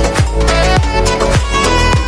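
Background music with a steady beat: a deep kick drum about every 0.6 seconds under a held melody and heavy bass.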